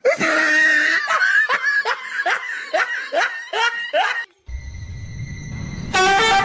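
A person laughing hard, a quick run of short 'ha' syllables for about four seconds. After a break, a steady high-pitched whine, then a brief loud pitched sound near the end.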